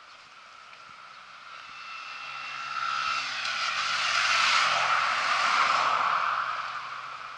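A motorcycle and a car drive past on the road: the sound swells to a peak about four to six seconds in and fades, with tyre rush on the asphalt and an engine note that drops in pitch as they go by.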